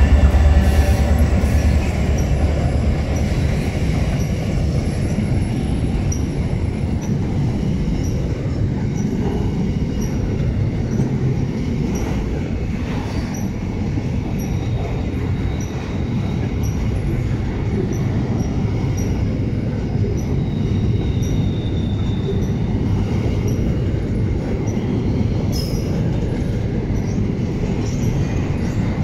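Intermodal freight train's wagons rolling past: a steady rumble of steel wheels on the rails with faint regular clicks, while the diesel locomotives' engine drone fades in the first second or two. A brief faint wheel squeal comes a little past the middle.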